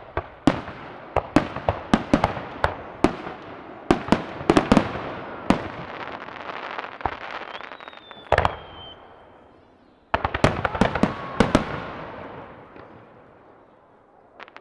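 Aerial fireworks bursting in rapid volleys of sharp bangs with crackle between them. About eight seconds in comes one heavy boom with a whistle sliding down in pitch, then another quick volley from about ten seconds in that dies away.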